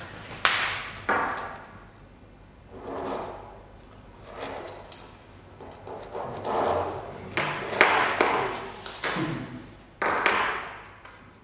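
Pen drawing on a paper chart on a tabletop: soft scratchy strokes about a second long, mixed with several sharp knocks that ring briefly, most of them in the second half.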